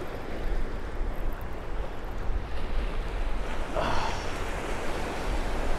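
Ocean surf washing steadily around the angler's legs, with wind on the microphone and a short louder splash about four seconds in.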